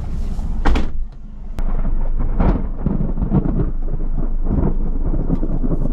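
Thunder from a supercell storm. After a brief lull about a second in, a long, heavy, low rumble rolls in and swells.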